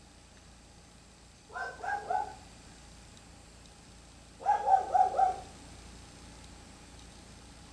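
An animal calling in two quick series of three or four short, even-pitched calls, the second series louder.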